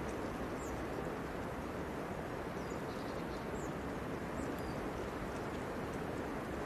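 Steady outdoor background noise, with a few faint, short, high bird chirps scattered through it.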